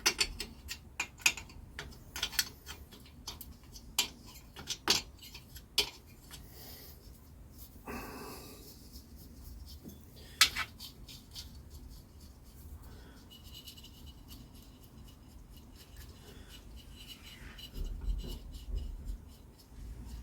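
Spanners and small steel engine parts clinking and knocking during the strip-down of a BSA Bantam two-stroke engine: a quick run of sharp clicks over the first six seconds, a short scrape about eight seconds in, one more sharp knock about ten seconds in, then quieter fiddling.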